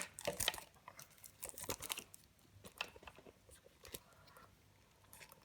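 Plastic packaging wrapping being picked at and peeled off a new speaker part: scattered crinkles and small clicks, busier in the first two seconds, then sparse.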